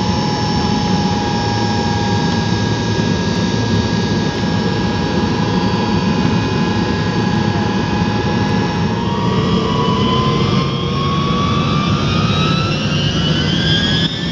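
Tu-154 airliner's rear-mounted jet engines heard from inside the cabin: a loud steady rumble with a whine that holds level, then from about nine seconds in rises steadily in pitch as the engines spool up, typical of thrust being advanced for the takeoff run.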